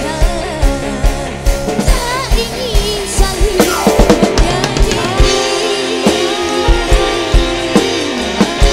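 Live dangdut band music: a woman singing over electric guitars, keyboard and bass, with a steady drum beat.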